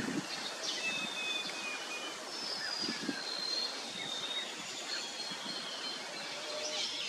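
Outdoor ambience of birds calling in the trees: many short, high, thin whistled notes, some overlapping, over a steady background hiss.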